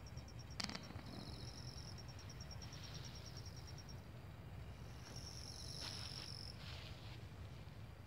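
Night insects chirping in high, rapidly pulsed trills that overlap and come and go, one growing louder for a while past the middle, over a faint low steady rumble. A single brief click sounds about half a second in.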